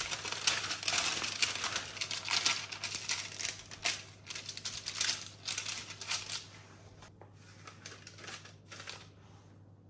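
Baking parchment paper crinkling and crackling as it is handled on a baking tray, then softer cloth rustles as a cotton tea towel is laid over the dough; the rustling thins out and stops near the end.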